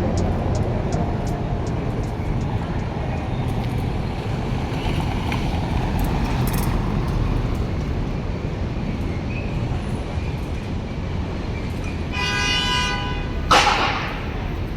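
Steady traffic rumble of a street. Near the end a horn toots once for under a second, followed at once by a brief, sharper sound that falls in pitch and is the loudest moment.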